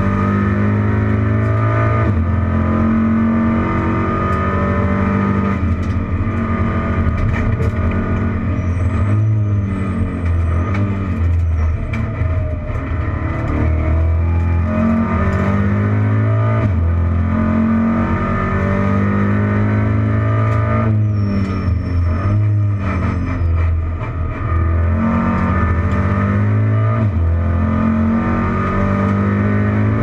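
Racing car engine heard from inside the cockpit at race speed, its pitch climbing through the gears with short breaks at each gear change and falling away several times as it slows.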